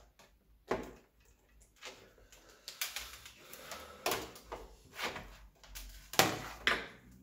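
Plastic laptop lid cover being handled and set down on a desk: a string of knocks and clatters, the two loudest near the end.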